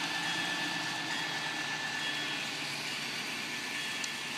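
Model Amtrak passenger train running past on layout track: a steady running sound with a faint, steady high whine.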